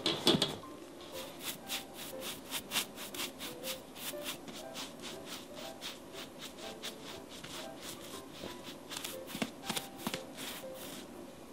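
Pastry brush stroking glaze over the crust of a freshly baked loaf: a run of soft brushing strokes, about two or three a second. Near the start a loud knock as the metal loaf pan comes off the loaf.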